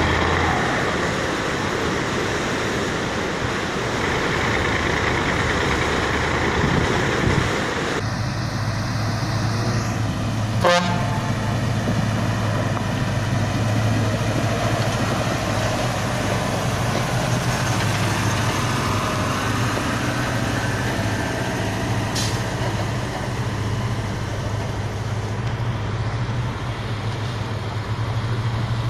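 A Ural 6x6 truck's engine running as it fords a fast river, with rushing and splashing water over the engine note. About eight seconds in, this gives way to a Ural truck's engine running steadily at low revs on a muddy forest track, with a short sharp sound a couple of seconds later.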